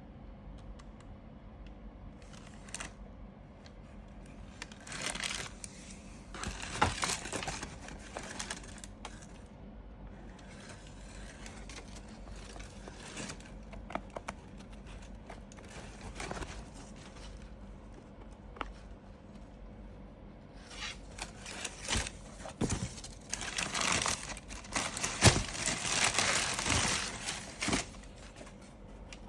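Shoebox and wrapping paper being handled: paper crinkling and scraping with light knocks and clicks. It comes in two busier stretches, a short one several seconds in and a longer, louder one through the last third.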